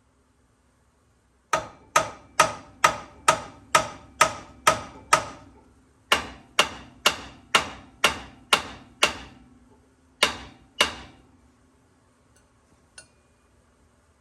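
Hammer blows ringing on steel, driven against the Bronco II's front steering knuckle to break the tie rod end's tapered stud loose. There are about eighteen blows, roughly two a second, in three runs: nine, then seven after a short pause, then two.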